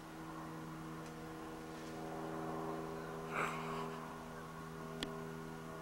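An engine idling nearby, a steady low hum with overtones that grows slightly louder after about two seconds. A short rustling burst about three and a half seconds in and a sharp click about five seconds in.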